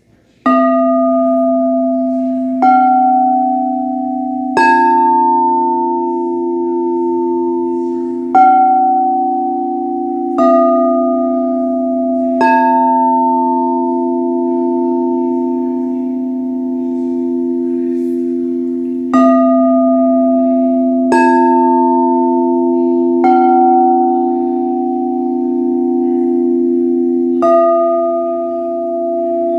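Crystal singing bowls struck one after another, about ten strikes in all. Each strike rings on in long steady tones that overlap and build into a sustained, shimmering chord.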